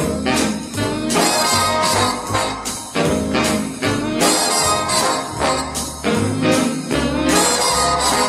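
Instrumental introduction of a swing big-band song, brass and band playing regular accented chords at a bouncy tempo.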